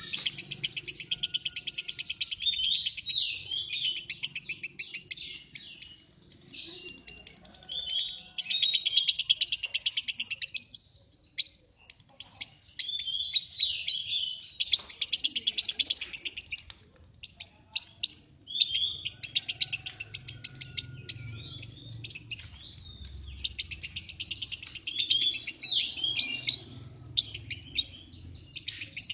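Lovebird singing in long, fast chattering trills, several bouts of a few seconds each with short pauses between them.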